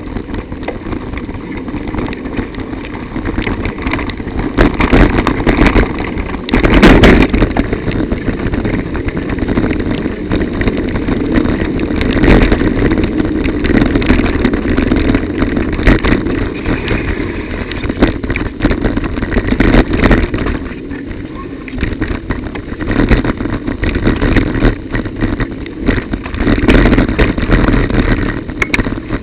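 Bicycle ride on a wet, broken road heard from a bike-mounted recorder: wind buffeting the microphone over tyre noise, with frequent knocks and rattles as the bike goes over bumps. About seven seconds in comes a loud jolt, the bike dropping into a pothole.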